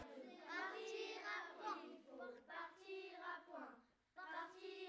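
Children's voices singing faintly, with long held notes; the singing breaks off about four seconds in and comes back for one short phrase.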